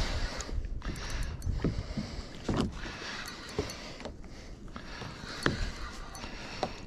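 Water slapping and sloshing against a kayak's hull at sea, with irregular small knocks and splashes and wind on the microphone.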